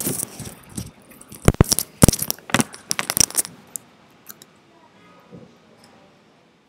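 A burst of sharp knocks, clicks and scrapes, a rapid clatter for about three and a half seconds, then dying away to faint scattered ticks and rustling.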